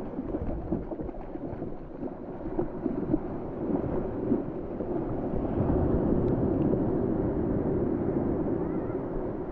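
Surf washing in and out over a pebble beach, swelling louder about halfway through, with a faint steady hum underneath.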